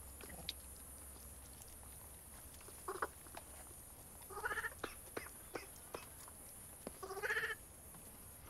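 Vervet monkeys giving three faint, short cries, about three seconds in, around four and a half seconds and near seven seconds, with a few light clicks and rustles between them.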